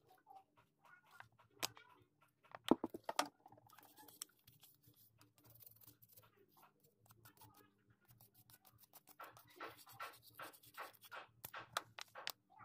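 Light clicks, taps and scrapes of hand work on small engine parts, with a cluster of sharper knocks about three seconds in and a run of quick ticks near the end.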